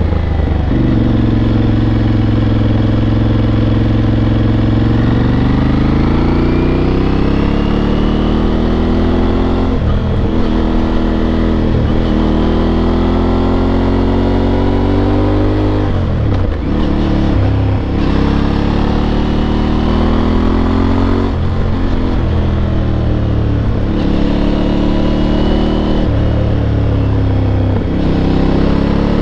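Aprilia Tuareg 660's two-cylinder engine and exhaust under way, accelerating and easing off through the gears. The pitch climbs, drops sharply about six times as the rider shifts or lifts off the throttle, and climbs again.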